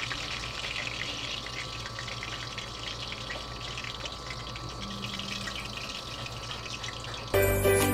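Oil sizzling steadily as lumpia-wrapped shrimp tempura rolls deep-fry in a pan. Music starts suddenly at the very end.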